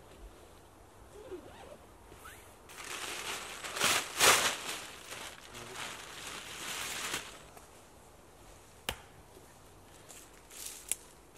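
Canvas and dry fallen leaves rustling as a person ducks into a Polish canvas lavvu tent, loudest about four seconds in; two sharp clicks follow near the end.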